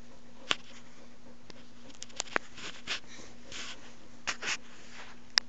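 Siberian husky sniffing right at the microphone in a few short breathy snuffs, with several sharp clicks and knocks in between, over a steady faint hum.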